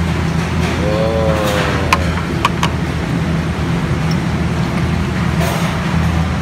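A steady low mechanical hum, with a few sharp metal clinks, like a utensil on a pan, about two seconds in.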